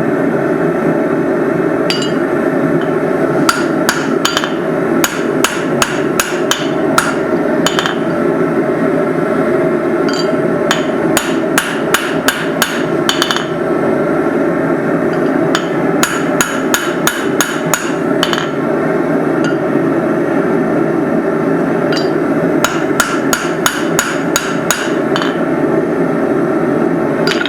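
Hammer blows on hot steel being forged into a hammer head, in bursts of several quick strikes separated by short pauses, over a steady background noise.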